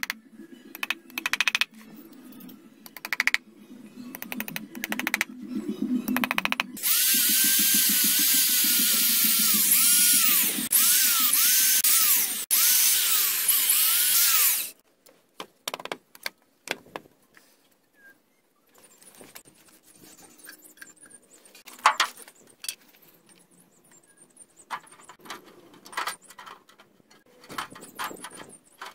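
Corded electric drill boring into a weathered wooden beam for about eight seconds, its motor pitch dipping and recovering as the bit loads up, stopping briefly twice. Before it, a series of hammer taps on the wood; after it, scattered light clicks and knocks.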